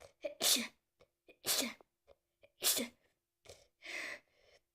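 A person sneezing over and over because of a cold: four sneezes about a second apart, with short catches of breath between them. The last sneeze is weaker.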